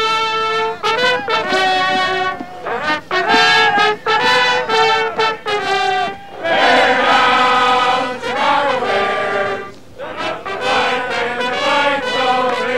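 Trumpets playing a lively brass tune in short phrases, with a long held, fuller passage in the middle.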